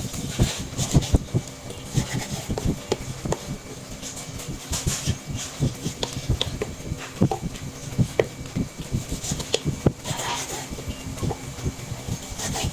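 Kitchen utensils and cookware handled during food preparation: irregular light knocks, taps and clatter.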